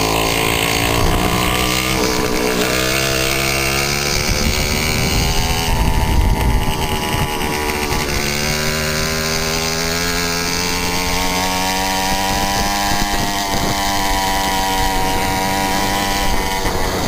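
Two-stroke Puch moped engine running hard. Its note climbs and falls several times, with a sharp drop about eight seconds in before it revs up again.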